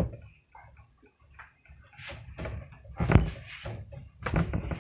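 A few short knocks and thumps of objects being handled, the loudest about three seconds in and another just before the end.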